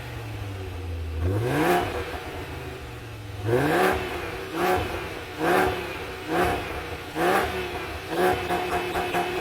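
VW Bora's 2.3-litre V5 engine on its stock exhaust with catalytic converter, idling, then revved once a little over a second in and dropping back to idle. From about halfway through it is blipped in a string of short revs, roughly one a second.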